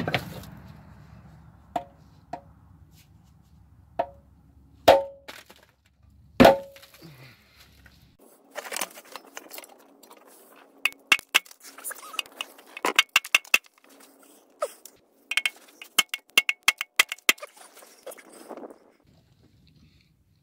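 Mallet blows on a rusty stamped-steel oil pan, each a sharp knock with a short ring, struck to break the RTV sealant's hold on the engine block. About half a dozen separate blows in the first seven seconds are followed by a run of quicker, lighter metallic taps and clinks.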